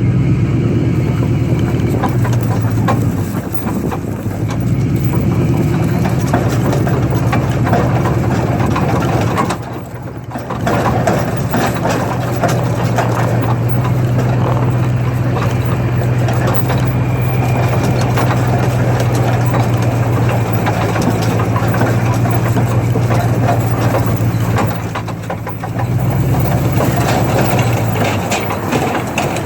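Heavy farm vehicle engine running steadily, with brief drops in level about three, ten and twenty-five seconds in.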